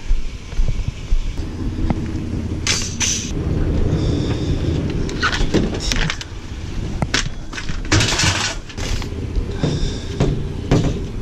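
A vehicle engine running steadily, with repeated short metallic clanks, knocks and scraping over it, typical of scrap metal being handled or dragged.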